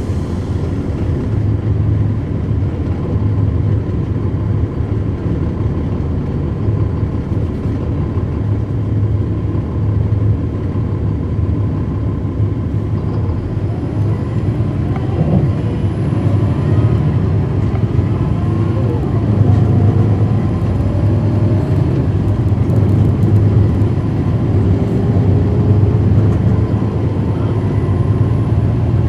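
NABI 40-foot suburban transit bus with a Cummins ISL9 diesel engine running under way: a steady low engine drone. Faint rising whines come in about halfway through, as the bus pulls harder.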